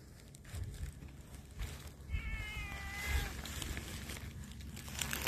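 A long-haired cat meows once, a single call about a second long beginning about two seconds in. A short crackle follows near the end.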